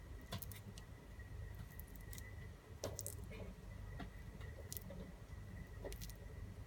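Wet dog food being packed into the top of a rubber Kong toy to seal it: faint, soft squishing with scattered small clicks and taps.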